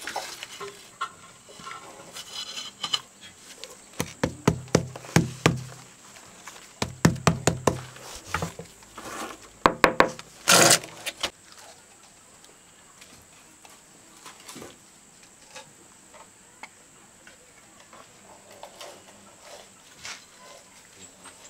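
Tiles being tapped down into mortar: two runs of quick knocks a few seconds in, then a short, loud rasping noise about ten seconds in, with faint scattered clicks after it.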